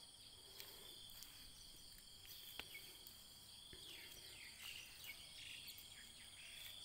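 Near silence filled by a faint, steady high-pitched insect trill, with a few soft clicks scattered through it.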